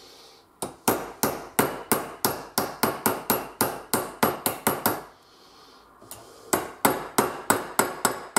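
Hand hammer striking a small metal bracket clamped in a bench vise, about three blows a second. A run of a dozen or so blows, a pause with one light tap, then a second run of about eight blows. The bracket is being bent into shape by hammering.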